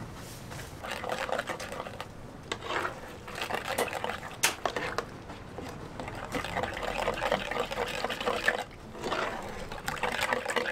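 Ladle and spatula stirring thick tteokbokki sauce in a steel pan: the sauce sloshes and slurps in uneven spells, with one sharp click about four and a half seconds in.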